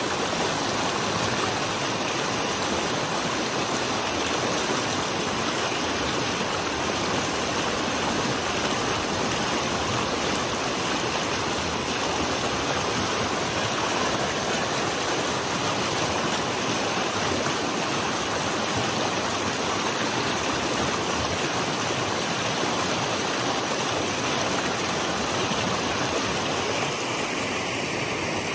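A fast, shallow creek rushing and splashing over rocks in a steady, loud wash of water, a little softer near the end.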